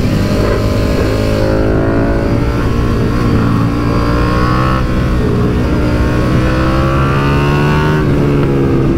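KTM 1290 Super Duke R's V-twin engine pulling hard under acceleration. Its pitch climbs, changes at about five seconds in, climbs again and falls away near the end.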